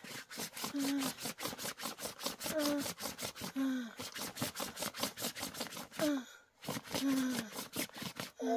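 A woman moaning in distress: about seven short cries, each falling in pitch, over a rapid crackle.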